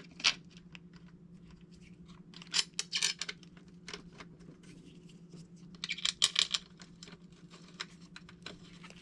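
Small metal screws and parts clicking and rattling as they are handled, in three short bouts, over a faint steady low hum.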